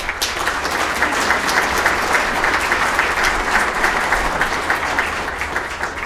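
Audience applauding, a dense patter of many hands clapping that begins at once and thins out near the end.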